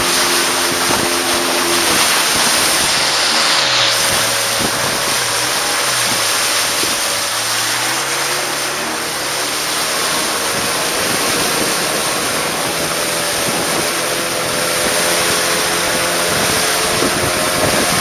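Motorised wooden river longboat running at speed: its engine's steady drone under loud rushing water and spray along the hull. The engine's pitch dips and rises again between about four and eight seconds in.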